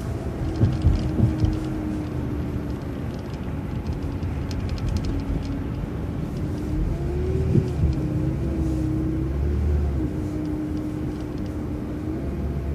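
City transit bus running, heard from inside: a low engine and road rumble with a steady whine that dips and rises a few times, as the bus changes speed.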